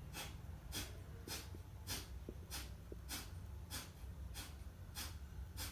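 Kapalbhati breathing: a steady run of about ten short, forceful exhalations through the nose, a little under two a second.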